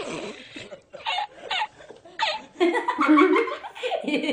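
People laughing: a few short bursts of laughter, then louder, denser laughter from about two and a half seconds in.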